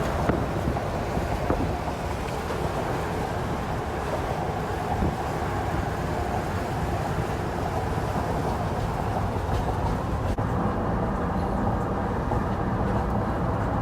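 Steady mechanical rumble with a hiss above it, unchanging throughout.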